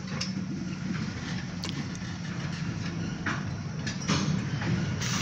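Freight train of covered grain hoppers rolling slowly past, a steady low rumble with a few sharp clicks from the wheels and couplers, muffled through the windows of a parked car.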